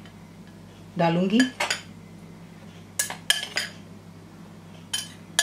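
Metal tablespoon clinking against a glass bowl as gram flour is spooned in: three quick clinks about three seconds in, and two more near the end.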